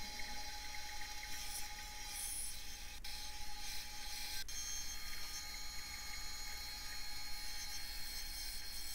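Rikon 10-inch benchtop bandsaw running and cutting through a honey locust log. It is a steady whine with a hiss of the blade in the wood.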